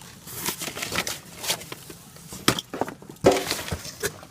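Packaging and loose barbecue parts being handled: a quick run of crinkles, clicks and light knocks as the parts come out of the box. A short voice-like sound comes about three seconds in.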